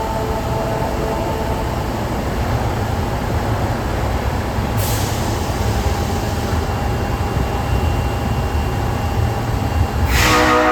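Osaka Metro 22 series subway train setting off, with a steady low rumble and a short hiss of air about five seconds in. Near the end its horn starts to sound: this car is known for a horn with an unusual, off-sounding tone.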